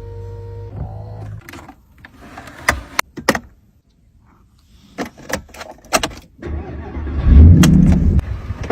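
A steady tone briefly at the start, then a series of sharp clicks, then a Mercedes-AMG engine starting with a loud flare that eases off near the end.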